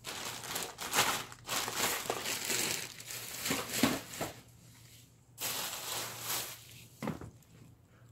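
Thin plastic shopping bags crinkling and rustling as they are handled, in two spells, with a single knock near the end.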